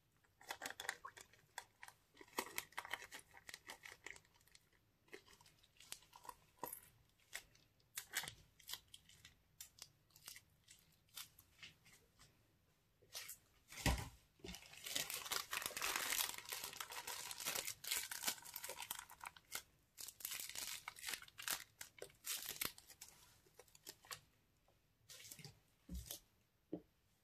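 A plastic zip-top bag of glitter slime crinkling in the hand and being snipped with scissors as the slime squeezes out into a glass dish. About 14 seconds in there is a sharp knock, followed by several seconds of denser crackling noise, then scattered crinkles again.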